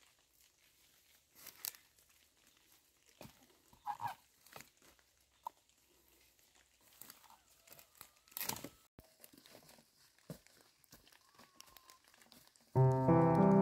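Scattered light rustling and crinkling noises with occasional sharper clicks. Background piano music starts near the end.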